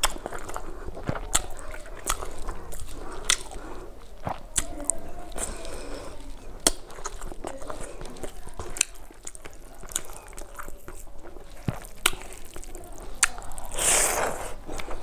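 Close-up eating sounds of rice and fish curry eaten by hand: chewing with many sharp lip smacks and mouth clicks, and a louder, longer rustling burst near the end as a handful of rice goes into the mouth.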